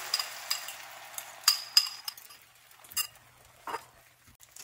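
Beaten egg sizzling in a hot stainless steel frying pan, the sizzle dying down over the first two seconds. A metal fork clinks several times against a ceramic bowl as the last of the egg is scraped out.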